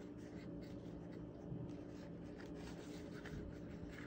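Hands handling a cloth jewellery pouch and a cardboard gift box: a run of soft, irregular rustles and scratches, over a steady low hum.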